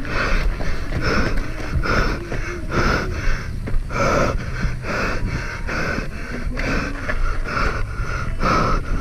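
A mountain biker's heavy, rhythmic panting, about two breaths a second, over a steady low rumble of the bike on rough ground.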